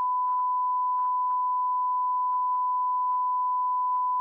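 A long, steady, pure beep tone that blots out the speech of the hearing recording, like a censor bleep. Faint traces of voices barely show through beneath it.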